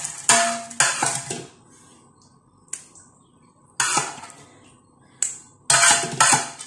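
A spoon scraping and knocking against aluminium pots as cooked shrimp is spooned out onto rice: several short scrapes in three clusters, a few with a brief metallic ring.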